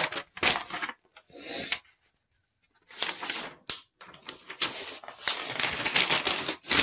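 Rustling and clicking of packaging being handled, in irregular bursts with a short pause about two seconds in.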